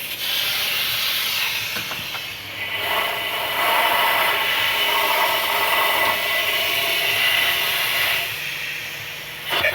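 Compressed air hissing steadily from a blow gun driven into an oil passage of an Audi A6 engine, testing whether the passage is clear. The hiss grows louder a few seconds in and eases off near the end.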